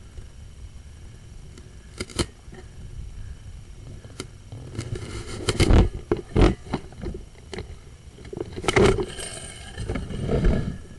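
Sewer inspection camera and its push cable scraping and knocking through a corroded cast iron drain pipe: irregular clicks and rough scraping, loudest in a stretch about halfway through and again near the end.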